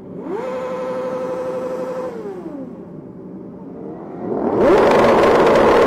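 Two motorcycles ride past one after the other, each engine climbing in pitch, holding, then dropping away as it goes by. The second is louder and passes closest near the end.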